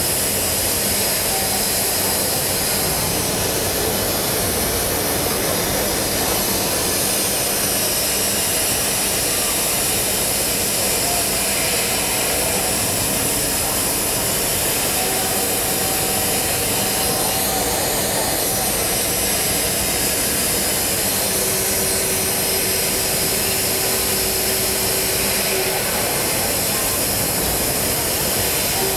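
Steady, even machine noise of a CNC machining center milling steel, without distinct strikes or rhythm, fitting a cut made without chatter. Faint steady tones come and go in the background.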